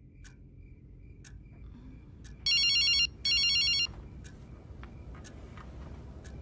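A telephone ringing: two short electronic trilling rings, one right after the other, a little before the middle. A low steady drone and faint ticks about once a second lie under it.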